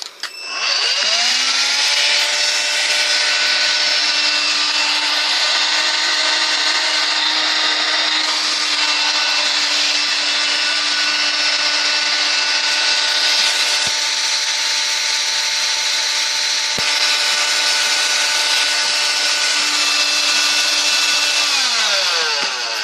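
Electrolux ZB3013 18 V cordless stick vacuum's motor spinning up about a second in, running with a steady high whine for about twenty seconds, then winding down near the end. It is running on its freshly rebuilt lithium battery pack.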